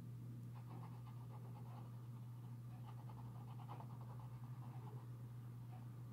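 Fine-tipped marker pen scratching on paper in quick short strokes, over a steady low hum.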